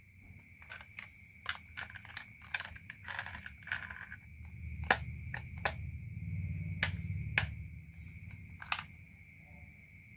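Marbles clicking and clacking along a wooden marble run, with a low rolling rumble from about four to eight seconds in.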